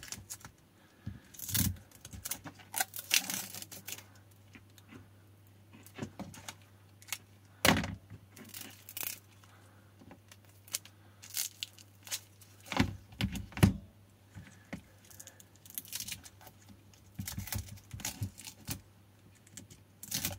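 Irregular clicks, taps and crinkles of hands working on a lithium-ion battery pack, peeling sticky tape and wrapping off the cell block, with a few louder knocks scattered through.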